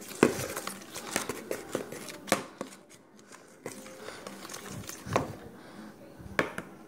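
A big spoon stirring thick homemade glue slime in a clear plastic bowl: scraping and squishing with a few sharp knocks of the spoon against the bowl.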